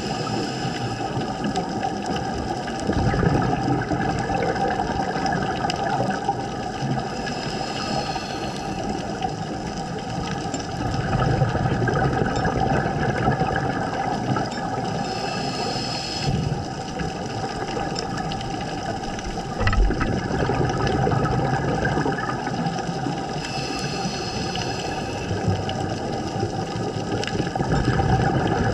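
Scuba breathing heard underwater through a GoPro housing: the regulator hisses on each inhale about every eight seconds, and a rumble of exhaled bubbles follows each one. A steady mechanical drone runs underneath.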